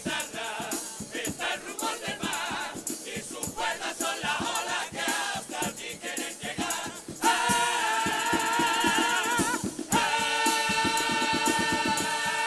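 Carnival comparsa male chorus singing in harmony with Spanish guitars and percussion keeping a fast beat. About seven seconds in they swell into a loud, long held chord. After a short break near ten seconds they hold a second chord to close their closing potpourri.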